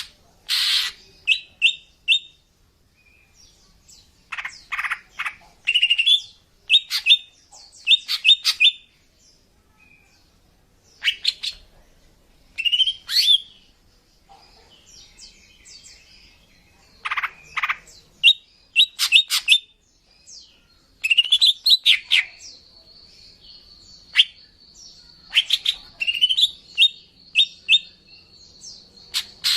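Female cucak ijo (leafbird) calling: bursts of sharp chirps, short rising whistles and quick runs of repeated notes with pauses between, a call used to lure males. A steady high tone runs under the calls from about two-thirds of the way in.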